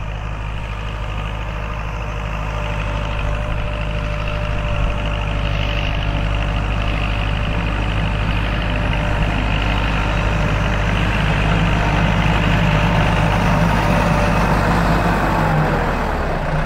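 Kubota L4708 tractor's 47-horsepower diesel engine running steadily under load while pulling a ridging plough through the soil, growing louder as it comes close and passes alongside.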